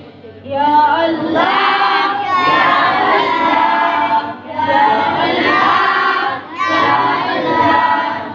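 A group of children singing a prayer together in unison, in three long drawn-out phrases with short breaks between them.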